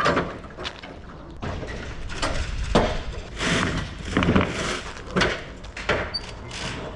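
A string of irregular thumps and knocks, roughly one every half second to a second, over a steady low rumble: someone climbing up into a tautliner semi-trailer and moving about on it.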